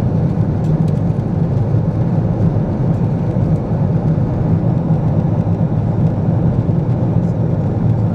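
Steady, deep cabin noise of a Boeing 777-200ER at cruise, heard from inside the passenger cabin: the constant sound of the engines and airflow over the fuselage.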